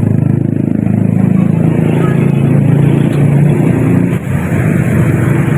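Steady loud drone of a running engine, its pitch shifting slightly up and down, with a brief dip about four seconds in.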